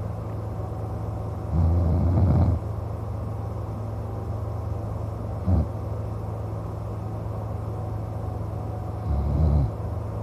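A man snoring in his sleep: a long snore about a second and a half in, a short snort in the middle, and another snore near the end, over a steady low hum.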